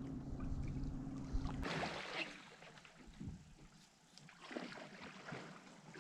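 Small boat on the water: a steady low hum cuts off with a click under two seconds in, followed by faint scattered knocks and soft water noise around the hull.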